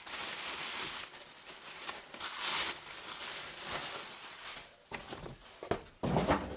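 Rustling and crinkling of packing material as old tools are lifted out of a box, loudest about two and a half seconds in. There are a few knocks of handling near the end.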